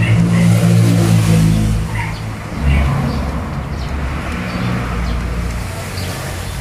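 Small engine running loudly, its note shifting lower about two and a half seconds in, then slowly fading.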